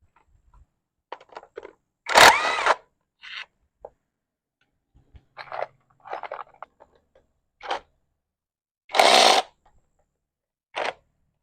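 Intermittent scraping, crunching and knocking of hand work on parts with tools. The two loudest scrapes come at about two seconds and nine seconds in.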